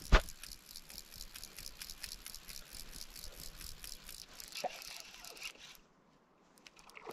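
Fly reel's click-and-pawl drag ticking rapidly and evenly as line is reeled in on a hooked fish, after a single knock at the start; the ticking stops for about a second near the end, then a few more ticks.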